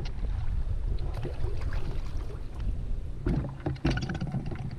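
Canoe moving through shallow creek water, with wind rumbling on the microphone throughout. There are scattered light splashes and knocks, bunched together a little past halfway.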